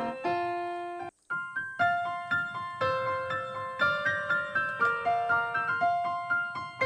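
Background piano music: a gentle melody of separate notes that cuts out for a moment about a second in.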